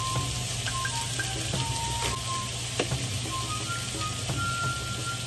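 Cabbage and sliced pork sizzling steadily in a frying pan, with a few light clicks.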